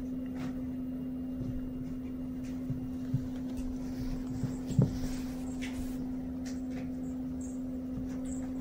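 Kittens wrestling on a rug: soft scuffs and light thumps of paws and bodies, with a sharper knock about five seconds in, over a steady low hum.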